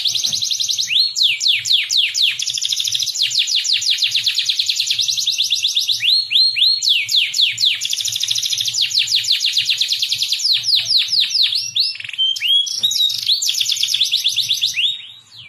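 Domestic canary singing a long, unbroken song of fast rolled trills and repeated sweeping whistled notes, with only brief breaks between phrases; the song stops near the end.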